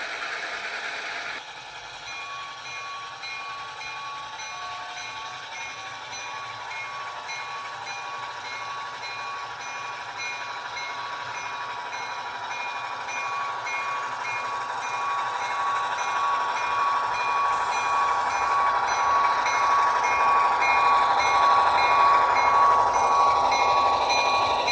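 Sound decoder of an HO scale GP38 model diesel locomotive, played through its small speaker: the locomotive bell rings at a steady rate of about two strokes a second over the diesel engine sound. The sound grows steadily louder toward the end.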